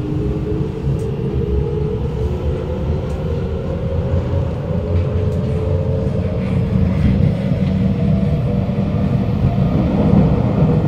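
Onboard sound of a Kawasaki Nippon Sharyo C751B metro train under power: the traction motors give a strong whine made of several tones that climb slowly in pitch as the train picks up speed, over a steady rumble of wheels on the rails that grows a little louder near the end.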